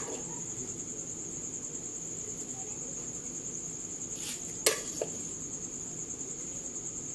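Steady high chirring of crickets in the background, with a serving spoon knocking twice against the metal pot about halfway through as the cooked biryani rice is scooped and turned.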